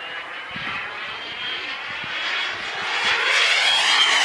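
Small turbine engine of an RC F-16 model jet making a fast pass: a high whine over a rushing roar that grows steadily louder as it approaches. Near the end it peaks and the whine begins to drop in pitch as the jet goes by.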